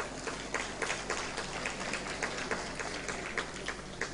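Audience clapping, heard faintly as a dense run of irregular handclaps.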